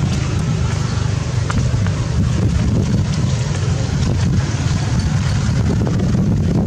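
Wind buffeting the microphone: a loud, steady low rumble that wavers without a break.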